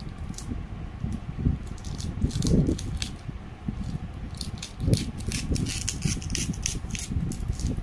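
Scissors cutting through a plastic courier mailer bag: a series of short crisp snips with plastic crinkling, sparse at first and then a quick run through the second half.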